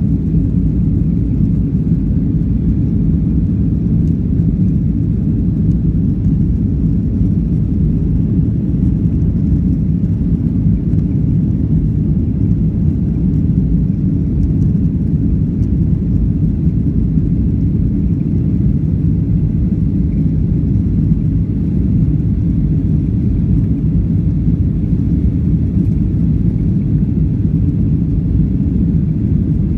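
Boeing 737-800's CFM56-7B turbofan engines at climb power just after takeoff, heard inside the passenger cabin as a steady low rumble with no change in pitch or level.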